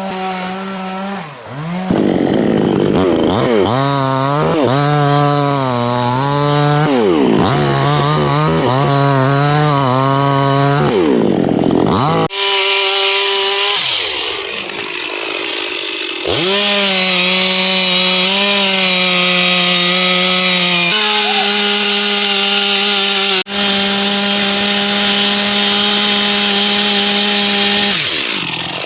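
Two-stroke chainsaw cutting teak wood, its engine note rising and sagging again and again as the chain bites into the cut. The sound jumps abruptly twice and runs steadier in the later part.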